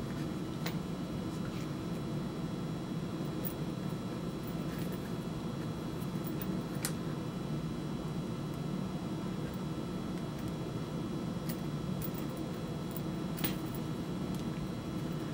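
Hand-stitching leather: thread pulled through the punched holes of a leather knife sheath, with a few faint light ticks from the needles and leather. A steady low hum runs underneath.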